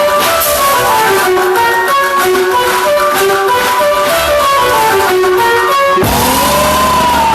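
Loud music with a fast melody of plucked, guitar-like notes. About six seconds in it switches to a long tone that rises and falls over a low bass.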